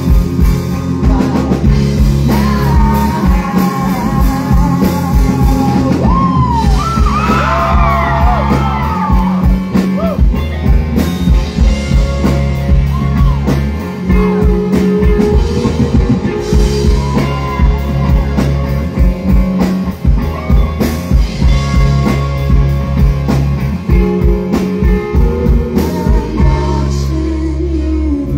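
Live rock song played loud: an electric guitar and a drum kit keeping a steady beat, with a woman's singing voice over the band.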